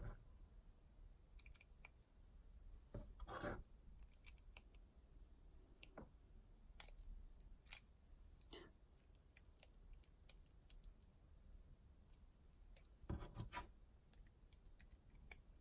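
Faint scattered clicks and light rattling of small plastic LEGO bricks being handled and pressed together, with a short louder burst of clicking about three seconds in and another near the end.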